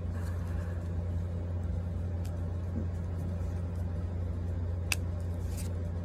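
Steady low background hum, with a few faint ticks and one sharper click about five seconds in.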